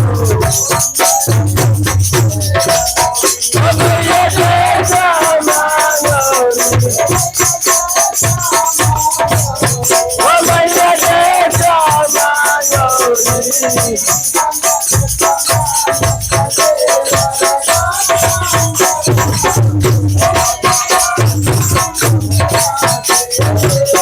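Devotional Hindi song music: a wavering melody line over a fast, busy beat of shakers and a regular low drum pulse.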